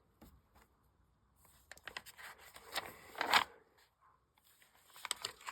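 Paper rustling and scraping as a book's pages are handled and turned, with a few light clicks. The rustling starts about a second and a half in, is loudest a little after three seconds, and picks up again near the end.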